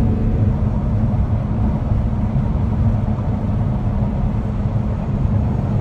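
Combine harvester's engine running steadily under load, a loud low drone with a constant hum.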